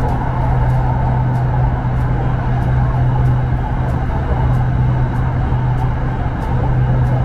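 Red Line electric commuter train running, heard from inside the carriage: a steady low hum over an even rumble.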